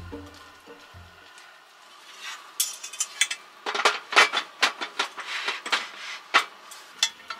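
Clattering and clicking as a portable tabletop cooker is handled and set up. Plastic and metal parts knock together in a quick, uneven run of clicks, thickest in the middle.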